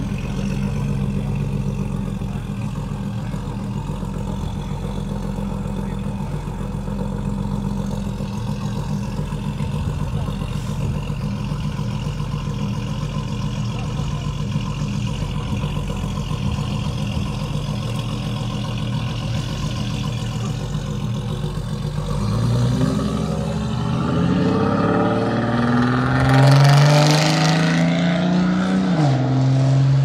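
A classic car's engine runs at a steady idle, then revs up with rising pitch from about three quarters of the way in, growing louder. It drops back suddenly just before the end.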